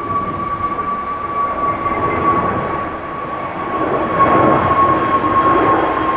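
Jet airliner's engines whining with a steady high tone that drifts slightly lower, over a rushing noise that grows louder about four seconds in.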